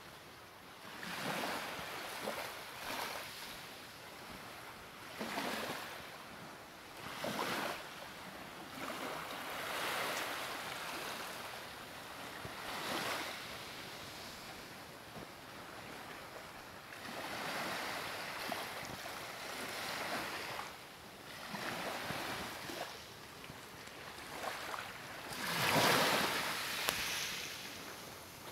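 Ocean surf: waves washing in one after another, a swell of noise every couple of seconds, with the biggest surge near the end.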